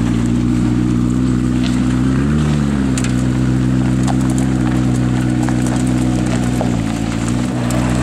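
McLaren P1's 3.8-litre twin-turbo V8 running steadily at low revs as the car creeps forward, with a brief rise and fall in revs about two seconds in and a slight dip near the end.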